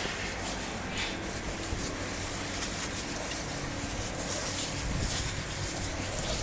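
Steady hiss of a water hose spraying, rinsing the sweat off a horse after exercise.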